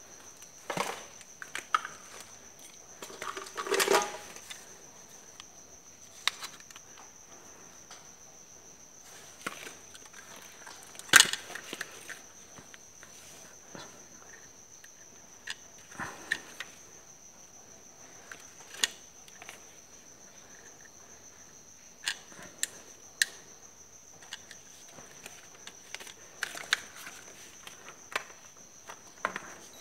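Scattered clicks and rustles of wires and alligator-clip test leads being handled and clipped onto an air-conditioner control board, the sharpest click about eleven seconds in. A faint steady high-pitched tone runs underneath.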